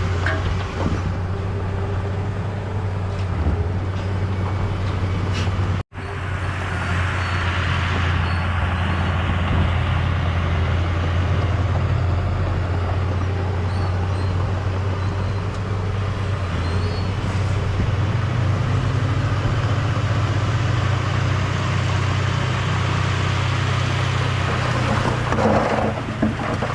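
Heavy diesel earth-moving machinery running steadily with a deep engine drone. The sound cuts out for an instant about six seconds in, and there is some clattering near the end.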